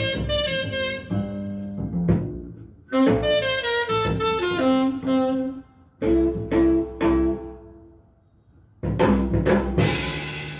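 Instrumental jazz music playing: melodic phrases with short pauses between them, over a bass line, played back on a hi-fi loudspeaker system.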